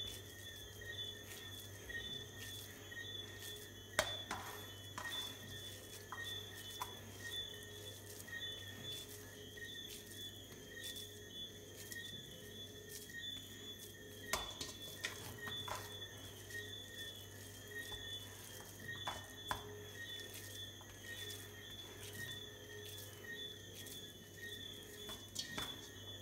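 Ground beef being squeezed and shaped by hand into patty balls in a stainless steel mixing bowl, with a dozen or so short knocks of hand and meat against the bowl. A steady faint hum runs underneath.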